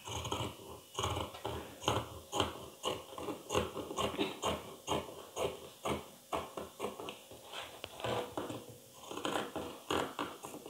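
Fabric scissors cutting through a doubled layer of cloth in a run of short snips, two to three a second, with a brief pause a little after eight seconds.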